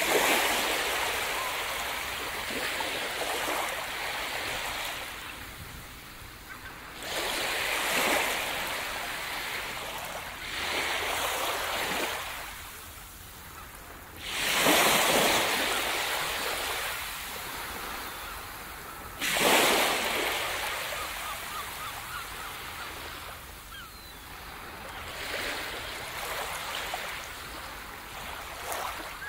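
Small waves breaking on a sandy beach and washing up the shore. The surf rushes in about six times, each rush fading away, and the loudest breakers come around the middle.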